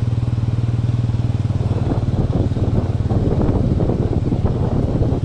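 Small two-wheeler's engine running steadily while riding, heard from on board, with a low even drone. A rougher rumbling noise joins from about two seconds in.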